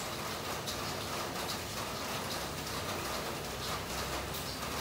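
Steady rain falling: an even hiss with scattered small ticks.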